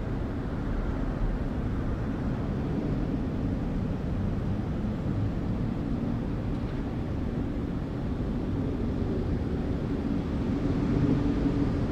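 City ambience: a steady low rumble of traffic, with no single sound standing out.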